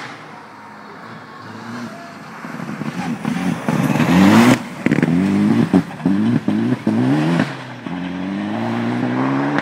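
Rally car's engine at full throttle passing close on a gravel stage, loudest as it goes by with a burst of tyre and gravel noise, then its pitch climbing and breaking off several times in quick succession as it changes up through the gears. Near the end a second rally car is heard coming up and accelerating.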